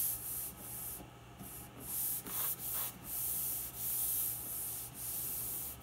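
Hands rubbing and sliding over a sheet of fiberboard, pressing it down onto glued painter's tape on a CNC spoilboard. The hands make about six separate swishing strokes.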